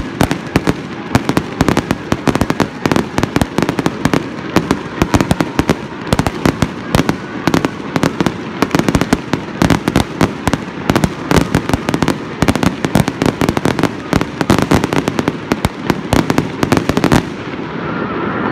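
Fireworks going off in a dense, rapid barrage: many sharp bangs and crackling bursts a second, stopping abruptly near the end.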